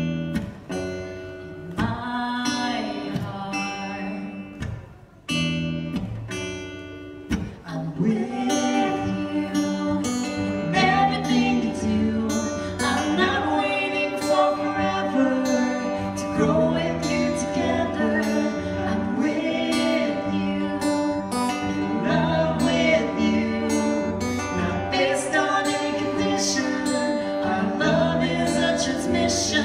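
Live song with acoustic guitar and a singer's voice over it. The guitar is sparse at first, then about eight seconds in the strumming gets fuller and louder.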